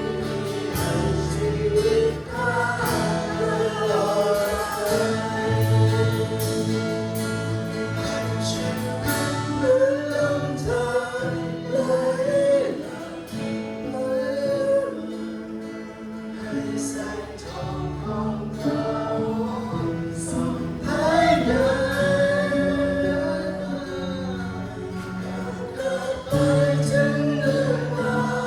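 Congregational worship song: voices singing a melody together over a band with bass, keys and drums.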